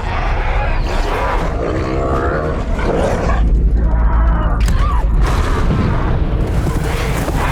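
Film action soundtrack: a deep, continuous rumble with booms from an erupting volcano, deep bellowing roars of fleeing dinosaurs and music underneath. The rumble is heaviest around the middle.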